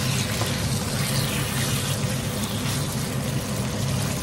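Wet chicken cubes sizzling in hot oil in a frying pan as they are stirred with a spatula, over the steady hum of a kitchen range hood fan.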